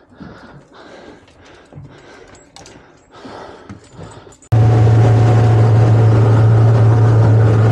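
Faint scattered knocks and rustles of a freshly caught pollock being handled on a boat deck. About halfway through, an abrupt cut to an outboard motor running the boat at speed: a loud, steady low drone over a rushing hiss of wake and wind.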